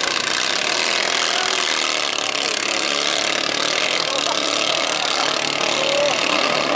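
Engines of motorized outrigger racing boats running flat out as they pull away, a loud, steady buzzing drone.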